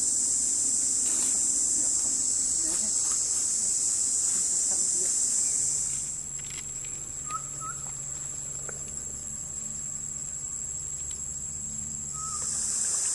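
Forest insect chorus: a loud, steady high-pitched buzz that drops away about six seconds in. It gives way to a quieter set of several steady high whines over a low hum, with a couple of short chirps. The loud buzz returns near the end.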